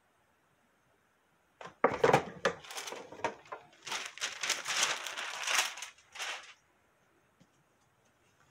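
A heat press being opened with a clunk about two seconds in, then parchment paper crinkling as it is peeled off the freshly pressed towel design.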